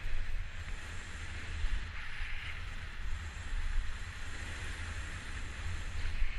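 Wind buffeting a skier's action-camera microphone during a downhill run, a steady rumble with swells of hiss as the skis run through powder snow.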